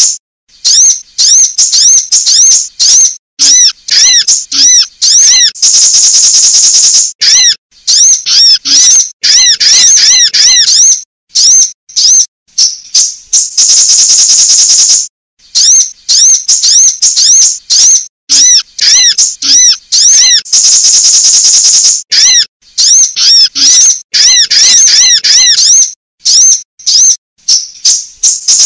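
Loud, high-pitched sunbird calls: quick series of sharp chirps and arched whistled notes, repeated in bursts. A buzzy trill of about a second and a half comes around six seconds in, again around fourteen seconds in, and near the end.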